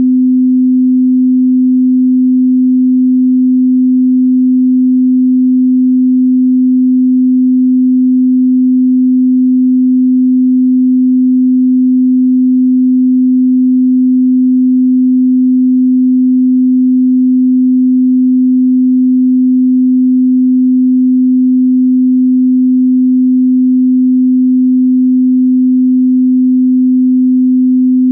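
Pure 255 Hz sine-wave test tone, a single steady low hum that does not change.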